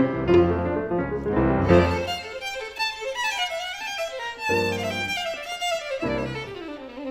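Jazz violin playing a quick, winding melody backed by a small jazz combo, with chords for the first couple of seconds and double bass notes underneath.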